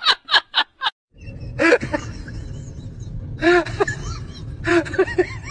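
A person laughing in quick short bursts, cut off about a second in. Then a husky dog vocalizing in several short calls, each rising and falling in pitch.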